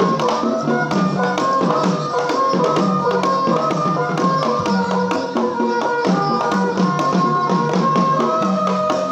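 Live Betawi music for an ondel-ondel dance: a melody of held notes over hand drums and steady clicking small percussion, playing at a lively even beat.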